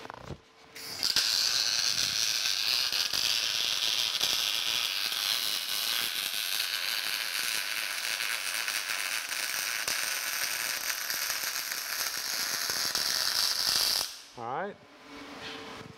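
MIG welding arc crackling steadily as a bead is run into the inside corner of a steel angle-iron frame. It strikes about a second in and cuts off suddenly near the end when the trigger is released.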